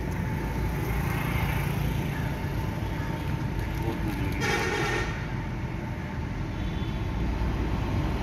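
Steady low rumble of motor traffic, with a short vehicle horn toot about four and a half seconds in.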